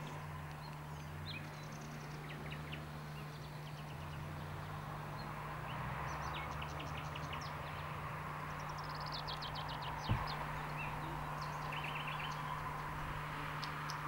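Small birds chirping in short, quick trills over a faint outdoor background and a steady low hum, with one dull thump about ten seconds in.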